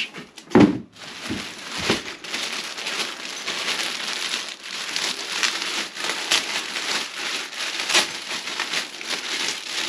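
Plastic packaging crinkling and rustling as it is handled and unwrapped, a continuous crackle of small clicks, after a dull thump about half a second in.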